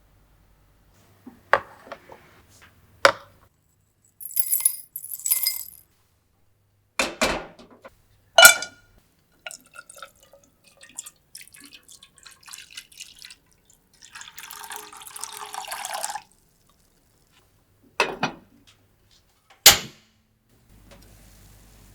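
Kitchen preparation sounds: a handful of separate knocks and clinks of utensils and containers, with about two seconds of pouring liquid roughly two-thirds of the way through.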